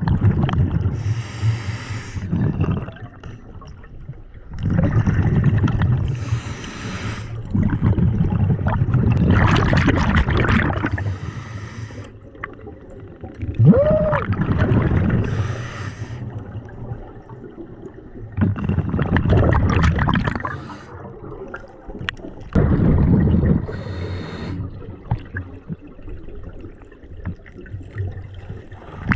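Scuba diver breathing through a regulator underwater: a short hiss on each inhale, then a longer rumble of exhaled bubbles, repeating about every four to five seconds.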